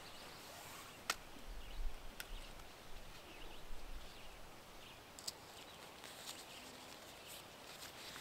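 A few faint, sharp clicks and light rustling from a webbing tree strap and its buckle being worked around a tree trunk, over a quiet forest background.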